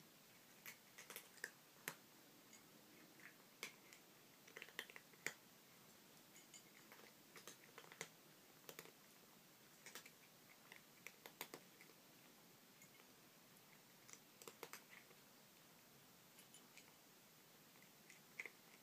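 A cat crunching dry kibble: irregular sharp crunches, often in quick clusters of several, with short pauses between and a quieter spell near the end.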